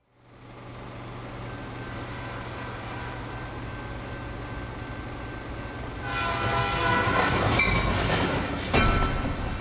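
Train sound effect for an animated locomotive: a steady low rumble of a running train, joined about six seconds in by a louder horn of several tones sounding together.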